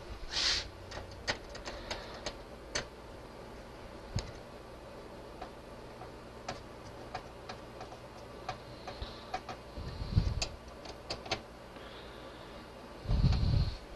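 Screwdriver snugging down motherboard mounting screws into a metal PC chassis: irregular small metallic clicks and ticks. Two dull knocks, about ten seconds in and near the end, are the loudest sounds.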